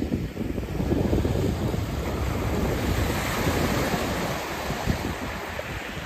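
Small waves breaking and washing up a shingle beach, a steady hiss of surf that swells through the middle and eases near the end. Wind buffets the microphone with a gusty low rumble throughout.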